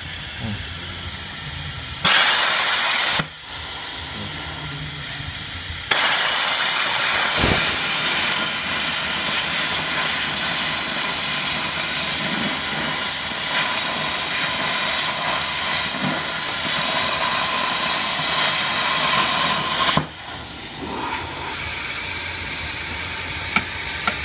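80 A plasma cutter with a B80 compressed-air torch: a soft air hiss, a brief loud burst about two seconds in, then the arc and air blast hissing loudly and steadily for about fourteen seconds as it cuts through thick steel plate. It cuts off abruptly, leaving the softer hiss of post-flow air cooling the torch tip.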